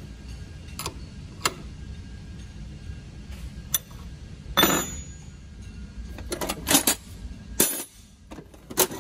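Sharp metal clinks of an open-end wrench against a stainless Swagelok tube fitting: a few light taps early, a louder clink about halfway, then a quick run of several clinks, over a steady low hum.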